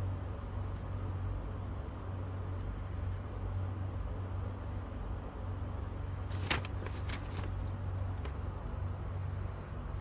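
Steady low background hum, with brief rustling and a few light clicks about six and a half seconds in as the parts and papers are handled.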